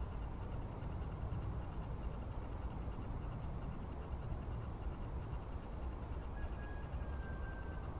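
Steady low outdoor rumble beside a river, with no clear events. A run of faint, short, high chirps starts about two and a half seconds in, and a thin steady whistle-like tone comes in near the end.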